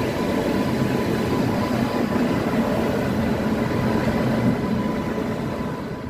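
Freight train rolling past with a steady rumble of wheels on rail and a faint steady whine, starting to fade out near the end.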